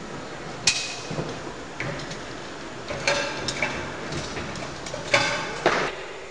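Climbing hardware, carabiners and harness gear, clinking against metal in a series of sharp clicks and clanks, some with a brief metallic ring. Loudest about a second in and again near the end.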